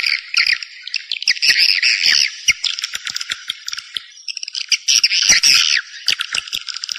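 Swiftlet lure call: recorded swiftlets twittering in dense, rapid chirps and buzzy trills. Louder stretches come about a second and a half in and again around five seconds, with the calling thinner in between.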